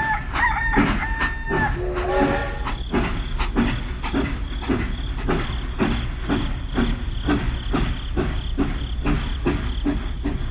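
A crowing call in the first two seconds, then a steady rhythmic chugging at about three beats a second.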